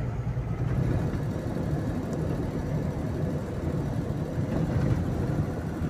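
Engine and road noise inside a moving vehicle's cab on a highway: a steady low rumble.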